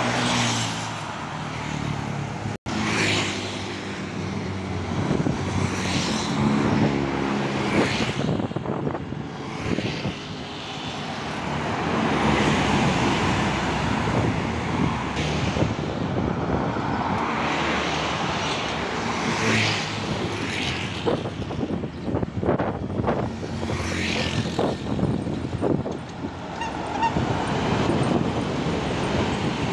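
Road traffic passing on a two-lane highway: cars and intercity buses going by one after another, their engines and tyre noise swelling and fading. An intercity coach passes close near the end.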